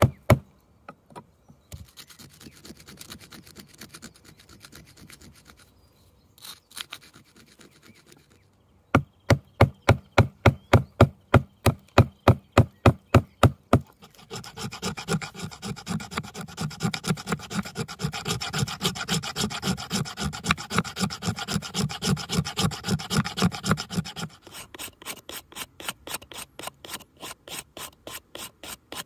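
Stone flake sawing and scraping a yew branch by hand: rhythmic rasping strokes, several a second. They are fastest and fullest through the middle stretch and lighter near the end.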